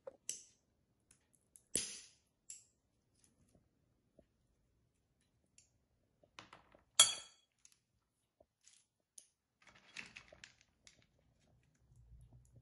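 Hazelnuts cracked one by one in a metal hand-held nutcracker: a few sharp cracks spaced seconds apart, the loudest about seven seconds in, with small clicks and rattles of broken shell between them.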